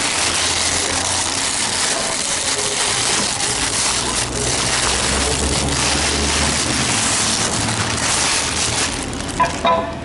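Clear plastic packaging crinkling and rustling loudly as it is pulled off a new motorcycle side stand, handled right at the microphone. A couple of short clinks near the end.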